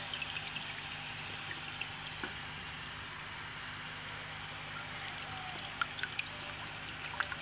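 Steady trickle of water in a goldfish breeding tank, with a faint low hum underneath.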